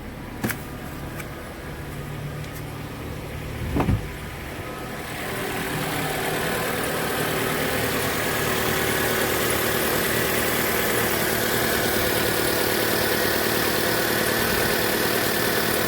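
Mitsubishi Lancer X 2.0-litre four-cylinder engine started cold about four seconds in, then idling steadily with a light high whistle from the alternator belt drive. The mechanic thinks this most likely comes from worn alternator bearings.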